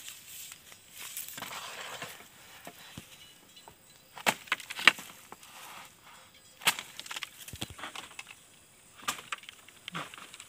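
Dry bamboo leaves and twigs rustling and snapping as someone pushes through a bamboo clump, with a scattering of sharp, irregular cracks.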